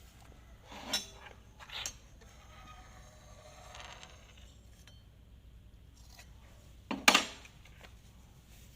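Small hard objects clinking and scraping as they are handled: two light clinks near the start, a soft scraping, then a louder double clink about seven seconds in.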